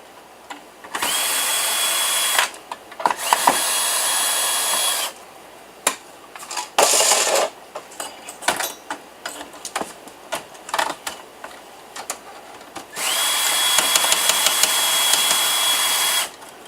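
Electric drill-driver run in three short bursts, each time its motor whine rising quickly to a steady pitch, as it backs screws out of a desktop PC case. Clicks and rattles of small parts being handled in between.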